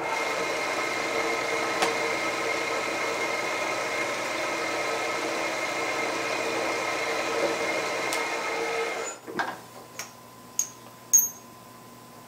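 Tree 2UVR milling machine's spindle running steadily while spot drilling a hole in an aluminium bar: an even machine whine with several held pitches. It stops about nine seconds in, followed by a few light clicks.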